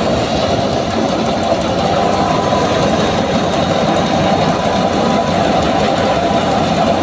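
Tractor-driven wheat thresher threshing wheat at full speed: the belt-driven drum and fan make a loud, steady mechanical noise, with the tractor's engine running beneath it.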